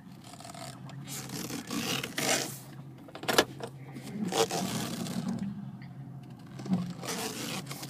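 A phone rubbing and scraping against the steering wheel and column, with sharp knocks about three and a half and four and a half seconds in, over the steady hum of a 2002 Ford Escape V6 running at a rough idle that shakes the car violently.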